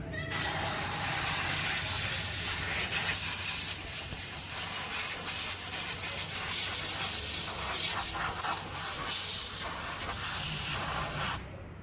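Spray gun hissing steadily for about eleven seconds, with a steady machine hum underneath, cutting off near the end.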